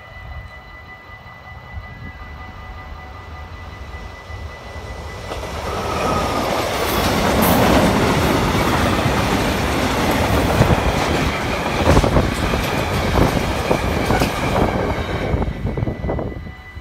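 Freight train hauled by a DB Cargo class 6400 diesel locomotive approaching and passing close by. The engine's rumble builds over the first five seconds. Then the tank wagons roll past with a loud, dense clatter of wheels over the rails, which drops away at the very end.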